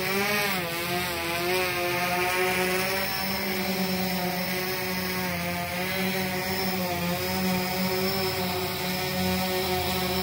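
Yuneec Typhoon H hexacopter hovering close by, its six rotors buzzing steadily. The pitch wavers up and down as the throttle changes, most markedly about half a second in.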